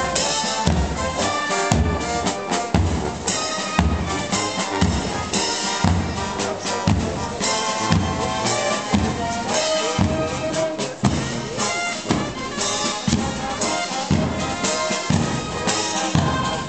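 Music with brass and drums, a steady beat of about two strong drum hits a second.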